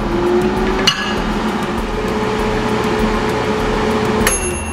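Air fryer running after being set to cook: a steady fan hum with a faint whining tone, a click about a second in, and a high thin tone coming in near the end.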